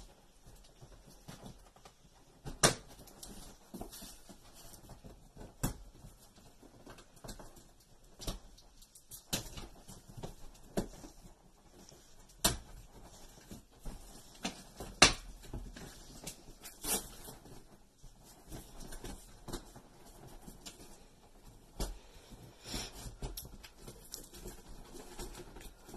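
A cardboard guitar box and its packing being worked open by hand: intermittent rustling and scraping of cardboard, with several sharp knocks spread through.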